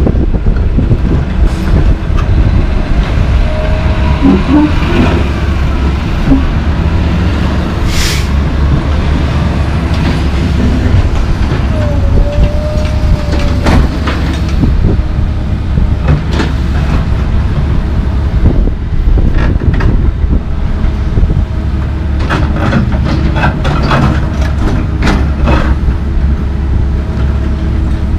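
Komatsu PC220LC track excavator's diesel engine running under load with a steady low rumble, its hydraulics giving a brief whine now and then as the boom and bucket move. A sharp metallic clank comes about a third of the way in, and near the end a run of knocks and clatters as the bucket digs into broken concrete.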